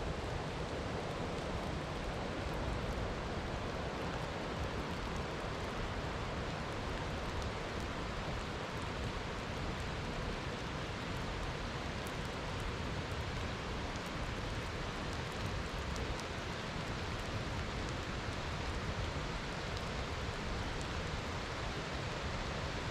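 Steady rain falling in a constant, even hiss, with faint scattered ticks of drops.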